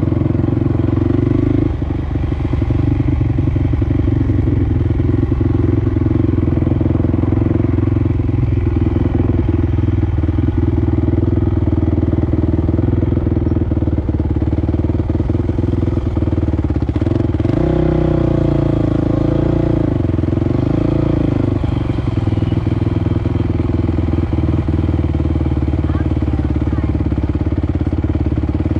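ATC three-wheeler's engine running steadily at low revs while riding slowly, with a brief rise and fall in revs about two-thirds of the way through.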